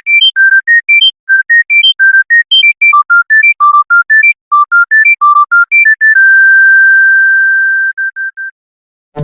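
Mobile phone ringtone in simple electronic beeps: a quick single-note melody that ends on one long held note, three short beeps, then stops.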